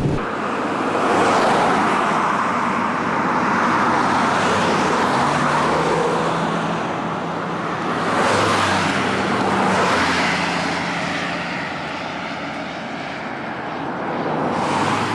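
Car driving on a road: steady tyre and wind noise with a low engine hum, swelling and easing several times.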